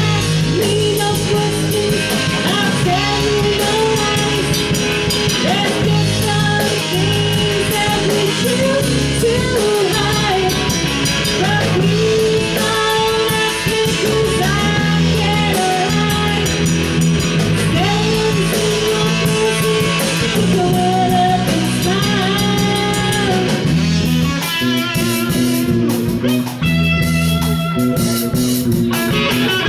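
Live rock band playing: a woman singing over electric guitar, bass guitar and drum kit.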